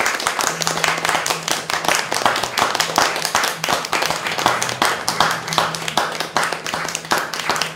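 A small studio audience applauding, a dense steady patter of many hands clapping, over a faint low steady hum.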